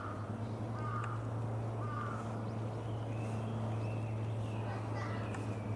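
A crow cawing three times, about a second apart, over a steady low hum. Higher-pitched calls follow in the second half.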